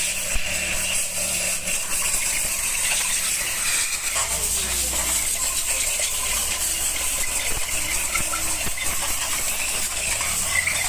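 Workshop noise: scattered light metallic clinks and rattles over a steady hiss, with a low hum coming in about four seconds in.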